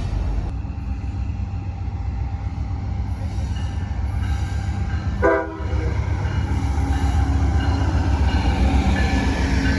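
A BNSF train rumbling past, with a short locomotive air-horn blast about five seconds in. The rumble grows louder in the last few seconds.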